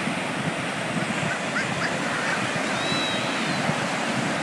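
Ocean surf breaking and washing up the beach: a steady rush of noise. A few faint high calls sound far off about a second and a half and three seconds in.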